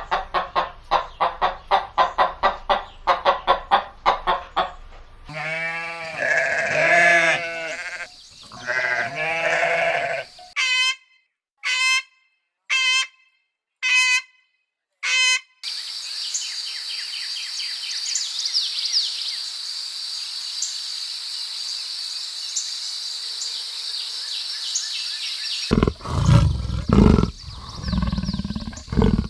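A run of animal sounds one after another: a hen clucking rapidly, then several bleats from sheep or goats, then five short high chirps about a second apart, then a steady high-pitched trilling chorus for about ten seconds, and near the end loud low growls leading into a big cat's roar.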